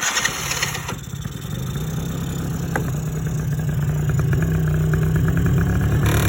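2004 Polaris Sportsman 90 ATV's small single-cylinder four-stroke engine, primed with starting fluid sprayed into the carburettor, cranked briefly by its starter, then catching and running steadily, gradually getting a little louder.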